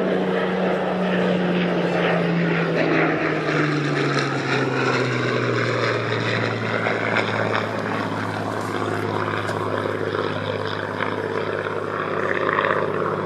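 Propeller aircraft flying past, its engine drone dropping in pitch about two to five seconds in as it passes and moves away.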